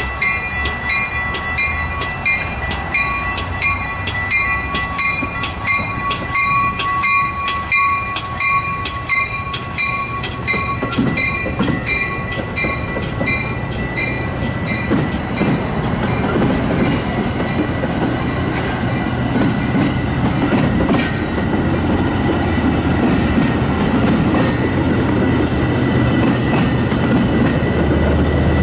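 Railroad crossing bell dinging steadily about twice a second. Over the second half a Metra commuter train's rumble and wheel clatter builds and grows louder, drowning out the bell.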